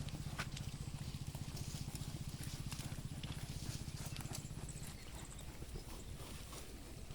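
Hooves of a flock of sheep clicking and clattering as they move, over a steady low hum that stops about five seconds in.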